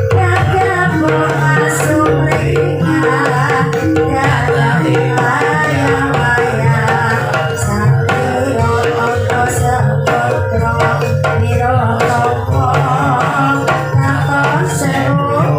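Javanese ebeg (kuda lumping) accompaniment playing without a break: gamelan instruments with kendang hand drumming and a singing voice.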